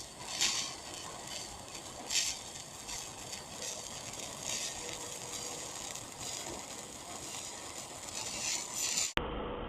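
TIG welding arc on uncleaned galvanized steel plate, hissing and crackling with occasional sharp pops as the zinc coating spits and sputters. The spatter is what fouls and blunts the tungsten electrode. The sound stops abruptly near the end.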